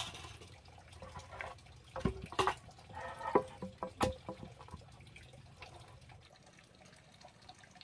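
Wooden boards knocking and clacking against each other and the concrete floor as they are set down and stood up into a box frame: a few sharp knocks in the first half, then quieter handling.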